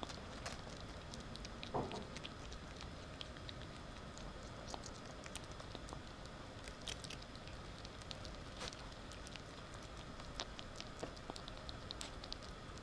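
A ferret chewing and crunching a crumbly treat off a hard floor: a faint, irregular run of small clicks and crackles, with one louder soft knock just before two seconds in.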